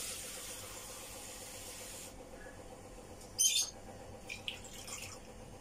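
Water running into a bowl as it is filled, stopping about two seconds in; a brief clatter follows a little over a second later.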